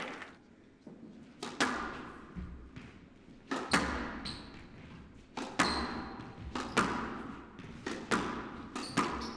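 Squash ball being struck by rackets and smacking off the court walls during a rally: a string of sharp, echoing hits about a second apart. A couple of short shoe squeaks come in the middle.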